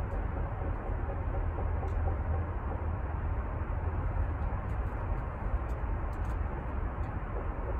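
Steady background noise: a low rumble with an even hiss above it, unchanging throughout.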